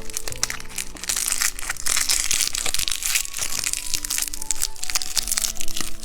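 Plastic candy wrapper crinkling and crackling as it is handled and torn open, densest in the middle seconds, over background music with steady held notes.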